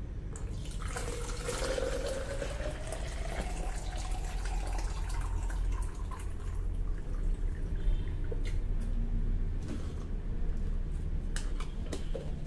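Water poured from a steel electric kettle into a plastic shaker bottle, its pitch rising steadily as the bottle fills, over a steady low hum. Near the end come a few sharp clicks as the lid goes onto the shaker.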